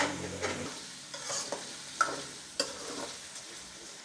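Chicken with ginger and garlic frying and sizzling in oil in a steel karahi, stirred with a metal spoon that scrapes and clinks against the pan about five times in the first three seconds.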